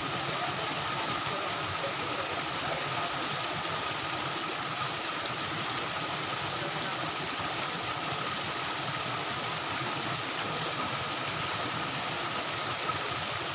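Steady rush of flowing water, an even hiss-like roar with no breaks, with a faint thin high tone held beneath it.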